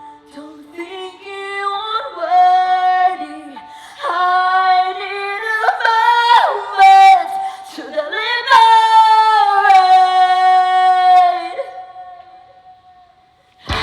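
A woman singing a slow melody with long held notes over a soft sustained accompaniment, fading out near the end.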